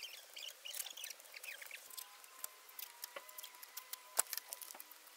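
Masking tape being unrolled and pressed down along a van's wheel arch: faint, irregular crackling with small ticks.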